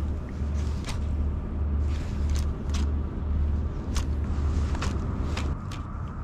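Spinning rod and reel in use as a jerkbait is twitched and reeled in, giving irregular sharp clicks, with a faint steady whine from the reel's gears starting near the end. Wind rumbles on the microphone underneath.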